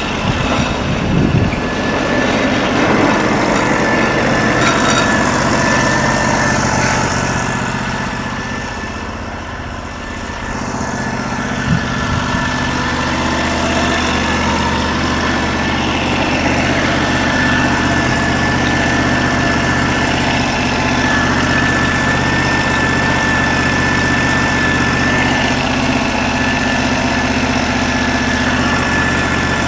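The 16 hp engine of a Norwood LM29 portable band sawmill running steadily, with a thin steady whine above it. It drops back briefly about ten seconds in, and there is one sharp click a little later.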